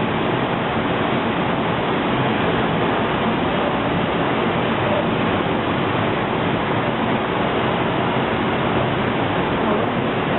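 Steady, even rushing of air in an industrial paint spray booth, unchanging throughout.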